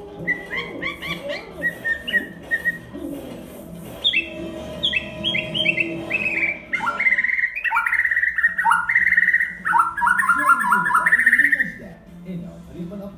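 White-crowned shama singing a run of clear whistled notes. About four seconds in comes a series that steps down in pitch, then louder, faster, varied phrases that stop shortly before the end.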